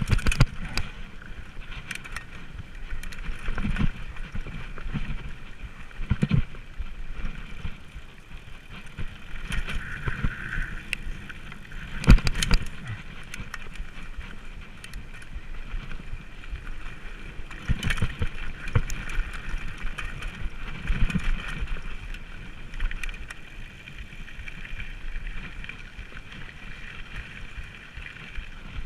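Specialized FSR full-suspension mountain bike ridden down a forest trail: a steady rush of wind and tyre noise with the bike rattling and knocking over bumps, the hardest knock about twelve seconds in.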